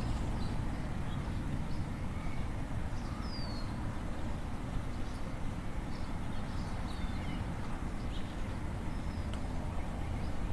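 Street ambience: a steady low rumble of distant traffic with short bird chirps scattered through it, a few of them falling in pitch.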